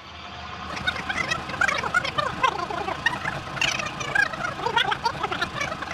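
A flock of birds calling over one another: many short, overlapping squawks and chirps with a fowl-like sound.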